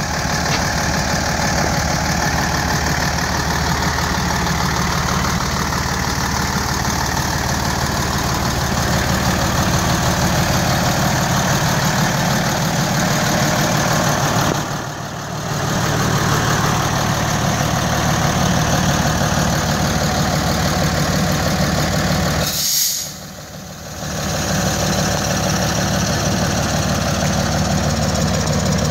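Diesel engine of a Mercedes SK heavy truck idling steadily, with an even low clatter; it goes briefly quieter twice.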